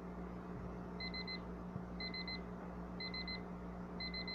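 Deercy digital kitchen timer's alarm going off: quick groups of four high beeps, one group each second, starting about a second in, signalling that the countdown has run out.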